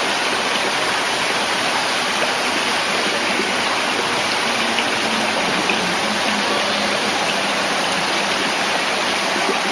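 Steady rushing of water pouring from an inlet into a shallow pool.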